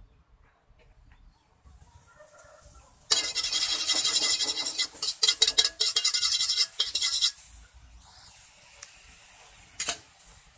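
An empty aluminium wok being scraped or wiped inside: a loud rasping that starts about three seconds in and stops after about four seconds, followed by a single sharp click near the end.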